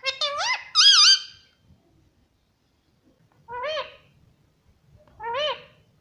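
Rose-ringed parakeet (Indian ringneck) calling: a quick run of shrill, swooping whistled notes in the first second and a half, then single rising-and-falling whistled calls about every two seconds.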